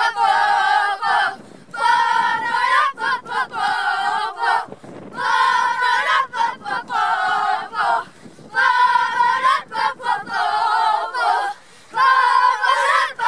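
A group of young boys chanting a team chant together in a huddle, in repeated phrases of two to three seconds with short pauses between them.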